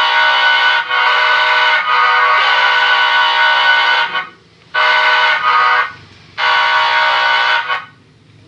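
Electronic horn module playing a train-horn sound through a horn-shaped loudspeaker, loud. It gives a run of sustained steady-pitched blasts with brief breaks, then two separate blasts of about a second each, and stops shortly before the end.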